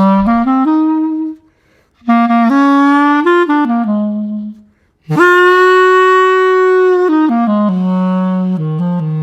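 Cheap pink plastic clarinet, played with a professional mouthpiece, ligature and reed: three phrases of moving notes separated by short pauses, the third opening on a long held note.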